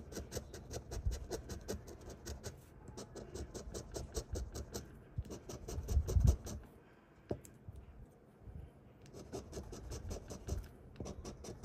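A coin scraping the latex coating off a paper scratch-off lottery ticket in runs of quick back-and-forth strokes, with short pauses between runs and a longer pause past the middle.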